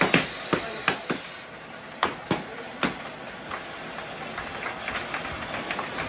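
Party poppers and confetti going off in a string of sharp, irregular pops over a steady hiss. Then several people clap in scattered, lighter claps.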